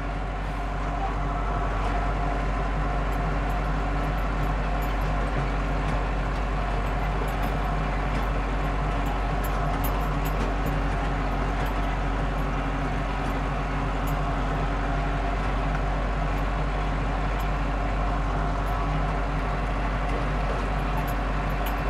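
Landini Blizzard 65 tractor's diesel engine running steadily under load, heard from inside the cab as it pulls a smooth roller.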